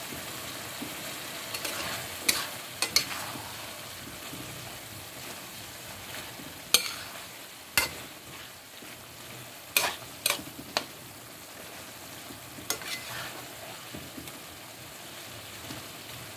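A spatula stirring vegetables in a simmering pan, over a steady sizzling hiss, with several sharp knocks of the spatula against the pan.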